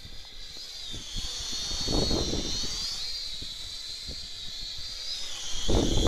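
Holy Stone HS110D quadcopter's four propellers whining steadily as it hovers in strong wind, the pitch wavering up and down. Wind rumbles on the microphone about two seconds in and again near the end.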